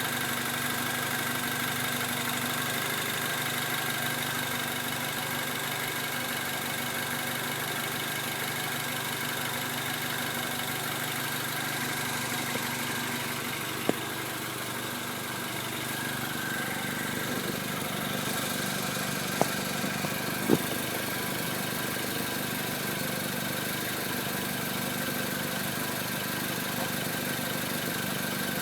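Mini Cooper S (R56) 1.6-litre turbocharged four-cylinder engine idling steadily, recorded to show an odd noise, with a few sharp clicks, one about halfway through and two or three more a few seconds later.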